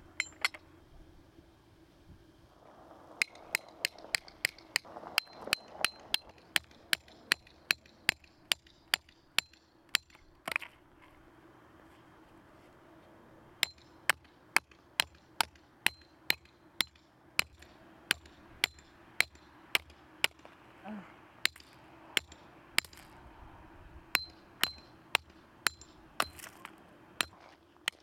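Steel tent pegs being driven into gravel ground with a wooden-handled camping hammer: sharp metallic strikes, about two a second, in two long runs with a pause of a few seconds between them.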